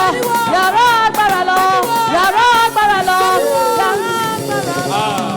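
Church worship music: a voice singing over an instrumental backing with a steady beat.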